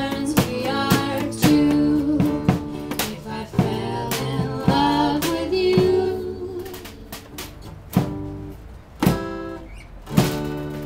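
Acoustic folk string band of acoustic guitars, banjo and mandolin playing with vocals, bringing the song to its close. Singing ends on a held note about six seconds in, then a few last strummed chords ring out, about a second apart.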